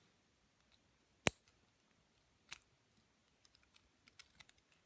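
Small sharp clicks and taps of tweezers and lock pins being handled on a hard surface: one sharp click about a second in, then scattered lighter taps near the end.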